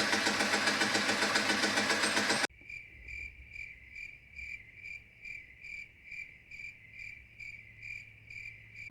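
A loud, steady noise that cuts off suddenly about two and a half seconds in, followed by a cricket chirping in a regular rhythm of about two to three chirps a second.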